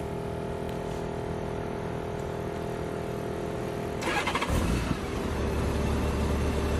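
Honda Gold Wing GL1800 motorcycle started with the electric starter: a steady hum, then about four seconds in a short burst of cranking as the flat-six fires and settles into a steady idle.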